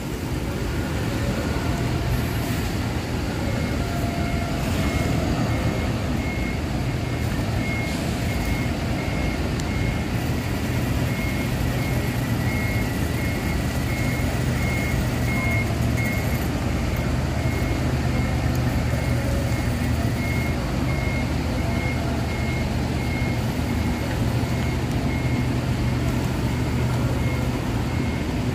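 Diesel engine of a coach bus running at low speed while it manoeuvres into its bay, with its reversing beeper sounding about twice a second from a few seconds in.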